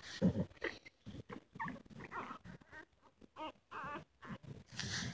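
Newborn American Bully × pit bull puppies squeaking and whimpering in short, high, wavering cries while they nurse, with a low thump near the start.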